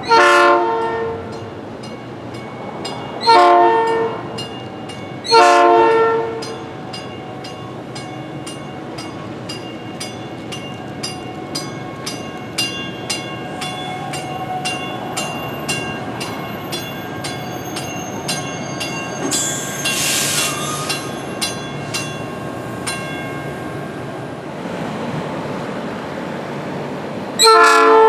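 NICTD South Shore Line electric commuter train sounding its horn in blasts of about a second each, three in the first six seconds and one more near the end, as it approaches. Between the blasts a bell rings rapidly and steadily over the train's low rumble.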